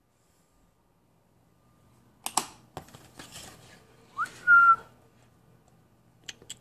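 A person whistles briefly to call a dog, about four seconds in: a quick rising note, then a short held one. A sharp knock and some rustling come just before it.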